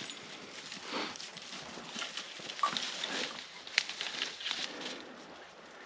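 Brittany bird dog hunting through dry grass and brush for a downed quail: scattered rustling and crackling of the cover, with short sniffing sounds.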